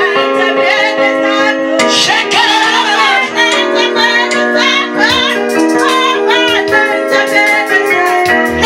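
Worship song: a female voice singing a melody over steady, held chords.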